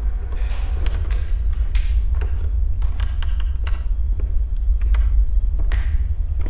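A steady low rumble, with scattered footsteps, knocks and creaks over it.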